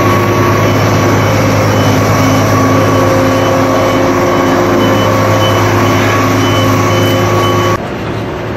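Large diesel engine of a crawler crane running steadily up close, a loud, even drone with a low hum and steady overtones. It drops to a quieter level near the end.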